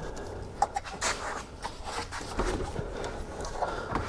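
Hands working a rubber serpentine belt back onto the engine's pulleys: irregular rubbing and scraping with scattered light clicks and knocks.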